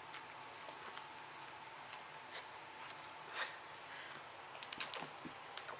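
A cat pawing at and biting a toy on a tile floor: faint scattered clicks and scratches of claws and toy on the tiles, one slightly louder scrape partway through, and a quick run of clicks near the end.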